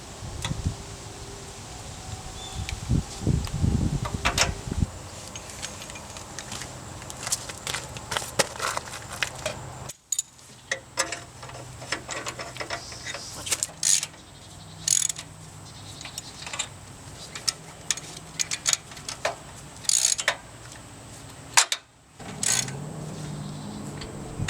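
Scattered light metallic clicks and clinks, with a low rumble during the first few seconds.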